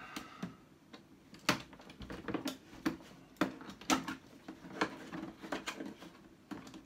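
Irregular sharp clicks and knocks of hard plastic as a black plastic tool carrying case is handled and worked at around its handle and fastening, about a dozen scattered taps and clicks.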